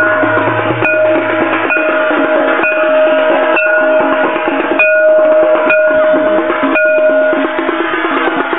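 Loud traditional procession music: fast drumming under ringing metal percussion, with a pulse about once a second.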